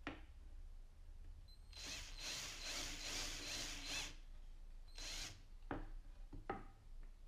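A power drill runs for about two seconds, then briefly again. A few sharp clicks and knocks of tool handling follow near the end.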